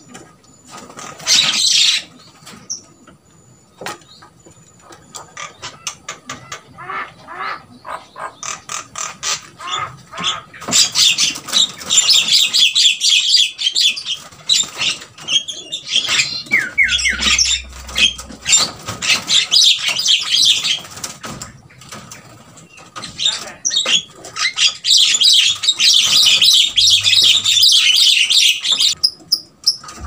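Javan mynas calling in fast runs of short, high notes: sparse at first, then dense in three long spells from about a third of the way in, with short pauses between them. The calls are likely agitation, with the pair still fighting at the nest box.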